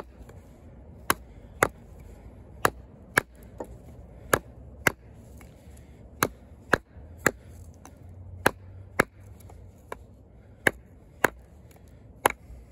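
Oerla OLK-033RD fixed-blade clip-point hunting knife, 420HC steel blade, chopping into a small piece of hard wood. The sharp chops come roughly one to two a second, often in quick pairs.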